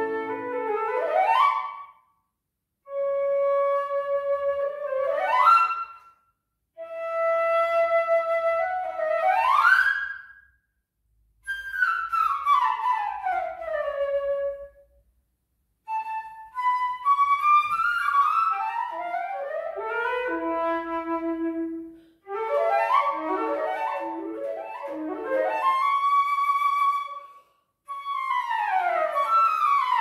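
Solo concert flute playing unaccompanied. It plays short phrases of quick rising runs that land on held high notes, and quick falling runs, with brief pauses between the phrases.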